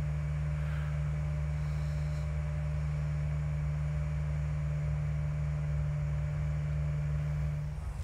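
Mobile crane's engine running in a steady low drone, which falls away just before the end.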